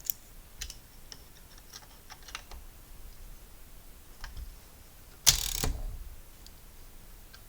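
Manual typewriter mechanism being worked by hand: scattered light clicks, then one louder, noisier mechanical sound lasting about half a second, a little over five seconds in.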